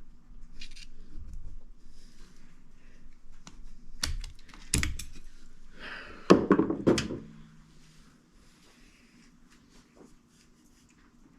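Sharp metal clicks and clatter of snap-ring pliers working a large, heavily beveled snap ring off the front shaft of an Eaton hydraulic motor, with the loudest clattering burst about six seconds in.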